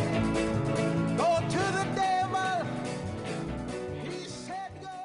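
Music with instruments, gradually fading out toward the end.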